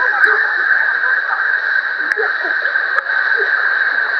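Waimea Falls pouring into its plunge pool: a loud, steady rush of falling water.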